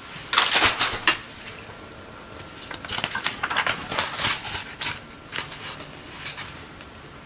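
Rummaging through objects on a desk: a run of clattering and rustling handling noises, once about half a second in and again from about two and a half to five and a half seconds in.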